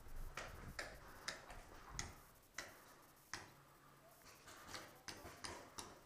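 Faint footsteps crunching and scuffing on a gritty floor, a string of short irregular steps roughly two a second.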